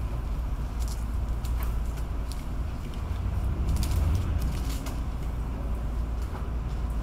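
Steady low outdoor rumble, with a few faint high ticks or rustles scattered through it.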